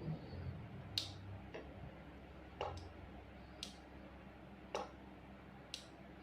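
Sharp switch clicks about once a second, some in quick pairs, as the siren module's controller is worked; no siren tone sounds.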